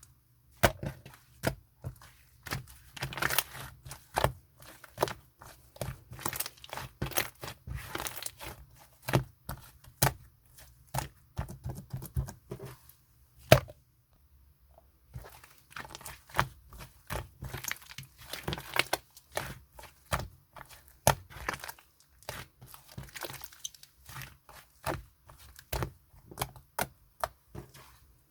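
Slime being squished and stretched by hand, giving an irregular run of sticky pops and clicks, with a brief pause a little before halfway.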